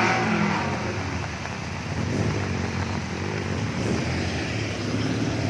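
A vehicle's engine revving as it pulls out of a flooded stream crossing, dying away in the first half-second. After that, the steady rush of fast-flowing muddy floodwater, with the engine faint underneath.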